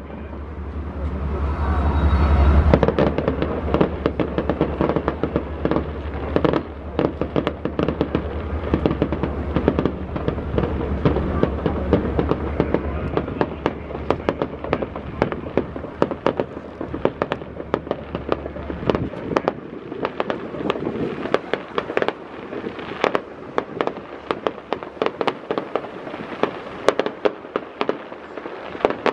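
Fireworks display: a rapid, irregular run of sharp bangs and crackling bursts from aerial shells. A steady low rumble lies under them and stops about two-thirds of the way through.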